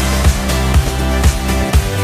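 Background music with a steady beat of about two beats a second over deep, sustained bass notes.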